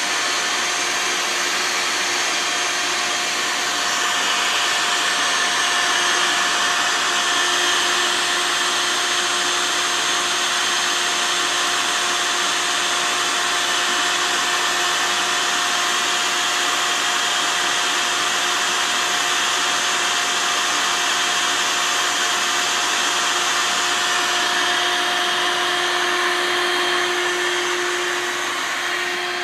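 Bee vacuum's motor running steadily with a constant hum as it sucks a honeybee swarm off a branch, dipping slightly in level near the end.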